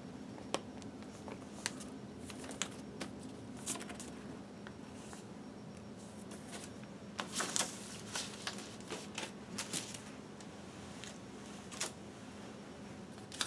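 Paper inner sleeve of a vinyl LP rustling and crinkling as it is handled, in scattered short rustles and soft clicks, busiest around the middle, over a faint steady hum.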